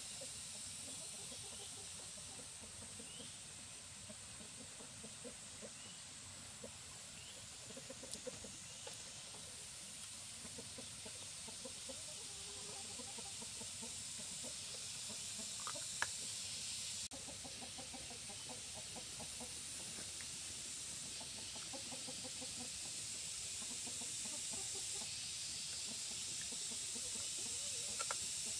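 Chickens clucking here and there over a steady high hiss, with a few sharp clicks.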